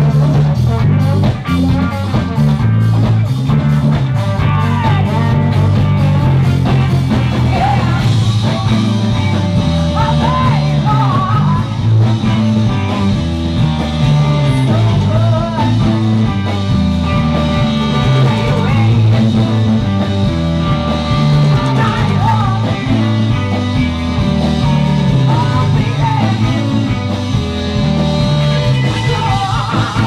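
A live band playing rock music: electric guitar, drums and singing.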